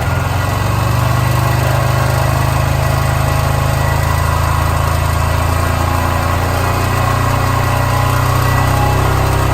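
Honda Grom's 125 cc single-cylinder engine idling steadily, with an abnormal mechanical noise that the owner suspects is the cam chain.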